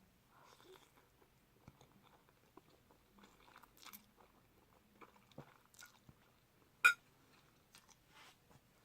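Close-up eating sounds: chewing spicy instant noodles, with scattered small clicks. One sharp click about seven seconds in is much louder than the rest.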